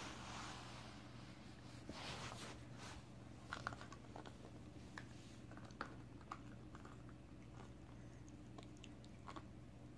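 A puppy chewing and biting on a chew stick, with scattered sharp clicks of teeth from about three seconds in and soft rustling before that.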